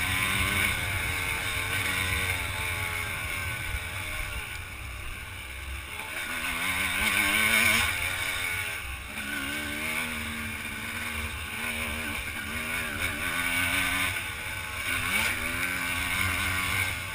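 Dirt bike engine running under way on a trail, its pitch rising and falling over and over as the throttle opens and closes.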